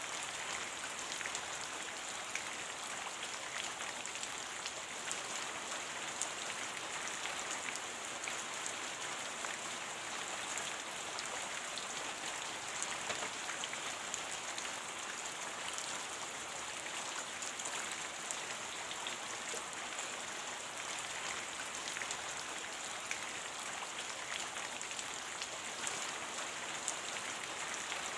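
Steady rain falling: an even hiss with many fine drop ticks scattered through it, holding the same throughout.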